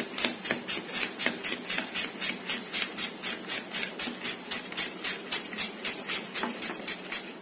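Raw peeled potato scraped back and forth across a plastic julienne grater's blades, about four quick rasping strokes a second, stopping just before the end.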